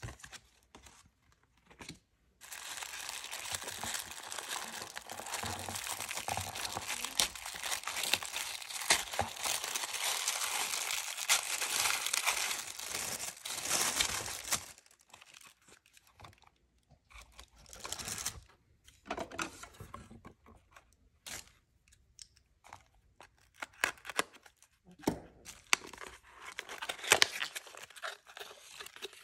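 Tissue paper in a cardboard box crinkling and rustling without a break for about twelve seconds as it is handled. After that come scattered, irregular crackles and rustles of paper packaging, ending with a small paperboard box being opened.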